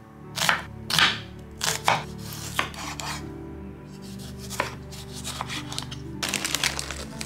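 Santoku knife cutting red onion and tomato on an olive-wood board. There are several sharp cuts in the first three seconds, one more about four and a half seconds in, then a quicker run of lighter cuts near the end.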